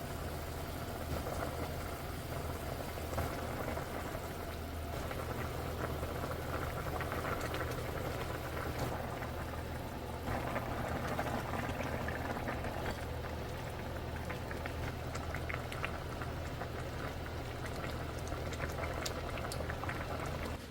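A pot of squid stew bubbling at a boil, a steady seething with many small pops and crackles, over a low steady hum.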